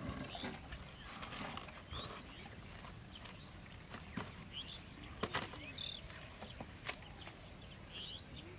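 Quiet outdoor pond-side ambience with a few short high chirps, typical of small birds, and scattered sharp clicks and knocks, the loudest a little past halfway.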